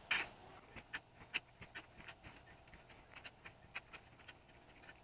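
A shovel scoops and throws a load of dirt onto a pit of hot coals and rocks. Then come faint, irregular clicks and crackles, about two or three a second.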